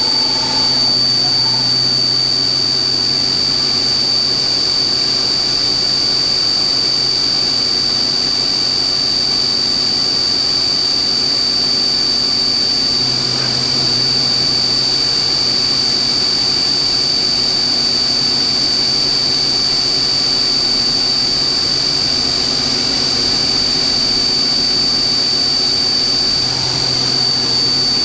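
YCM Supermax vertical machining center's CAT-40 spindle running at a steady high speed, giving a steady high-pitched whine over a low motor hum. At the very end the spindle begins to wind down, the whine falling in pitch.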